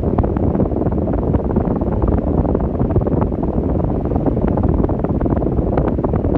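Arno Ultra Silence Force electric fan running, its airflow blowing on the microphone as a steady, loud rushing noise.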